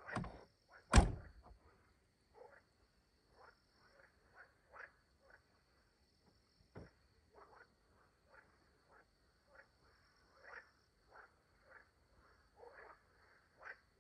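Frogs croaking in short, irregular calls, around a lake at night. Two heavy thuds come right at the start, the louder about a second in.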